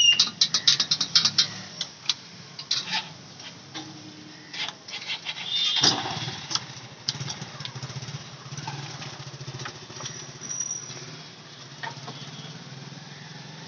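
Puris frying in hot oil in an iron kadai, with a metal slotted spoon clattering rapidly against the wok at the start and knocking on it a few more times. A steady low rumble runs underneath.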